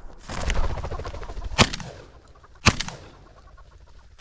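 A covey of sharp-tailed grouse flushing in a burst of whirring wingbeats and clucking calls, followed by two shotgun shots about a second apart, with a third shot right at the end.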